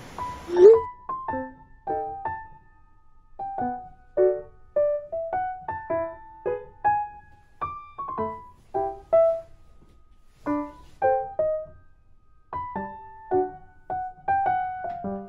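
Background music: a piano playing a slow, gentle melody of single notes and chords, with no drums.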